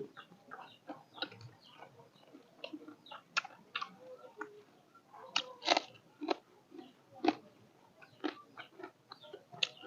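A person eating fish close to the microphone: chewing and biting, with irregular, sharp mouth clicks of varying loudness, two louder ones a little past halfway.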